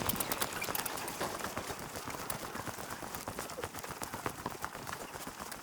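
Footsteps of someone walking outdoors: a steady, irregular run of small sharp clicks and scuffs underfoot.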